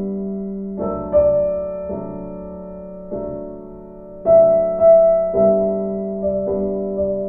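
Background piano music: a slow, gentle melody of single struck notes and chords, each fading before the next.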